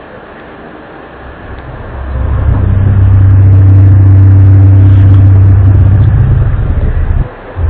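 A loud, low droning hum swells in about two seconds in and holds steady, with a brief dip near the end: one of the unexplained 'weird sounds' reported around the world.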